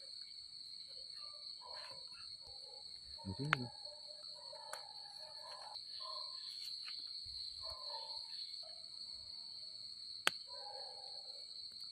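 A chorus of night insects keeps up a steady high-pitched trill throughout. Two sharp clicks come through, about three and a half seconds in and near the end.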